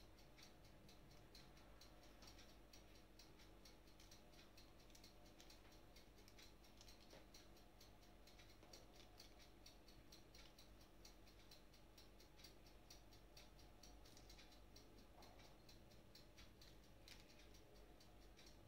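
Near silence: faint room tone with a fine, steady ticking throughout.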